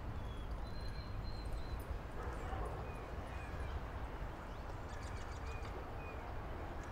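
Outdoor park ambience: a steady low rumble with faint, scattered bird chirps.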